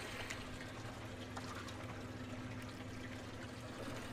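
Water trickling and splashing steadily, with a faint low hum underneath.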